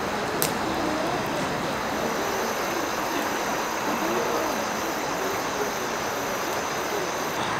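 Steady rushing noise of a river flowing past, with faint wavering sounds under it and a sharp click about half a second in.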